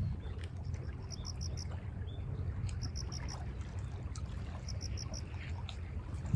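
Wind rumbling on the microphone, with a bird repeating quick runs of four high chirps every second and a half or so.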